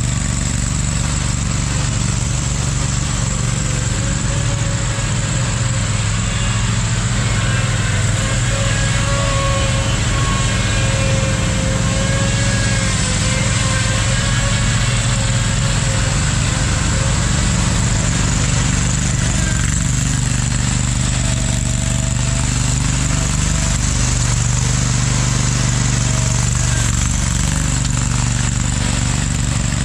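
Riding lawn mower's engine running steadily.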